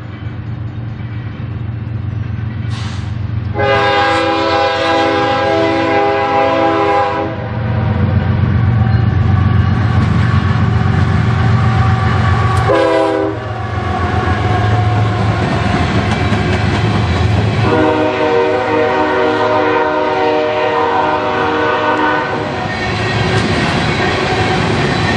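Diesel freight locomotives blowing a multi-note air horn as they pass close by: a long blast, a short one, then another long one, the pattern of a grade-crossing signal. Under it the locomotives' engines and the wheels of loaded coal hoppers make a heavy steady rumble and clatter.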